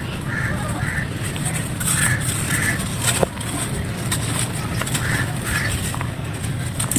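Dry clay crumbling with fine crunchy crackles and clicks, over a steady low rumble. Short calls come in pairs, about half a second apart, three times.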